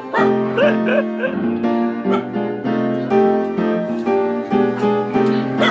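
Background music: a melody of held pitched notes, changing every half second or so.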